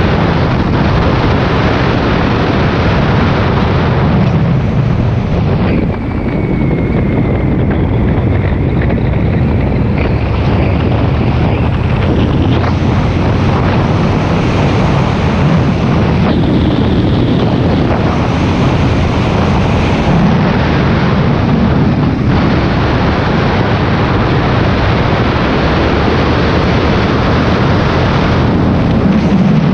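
Heavy wind rushing over the microphone of a camera on a Honda VTX V-twin cruiser riding at road speed, with the motorcycle's engine running underneath. The level stays steady throughout.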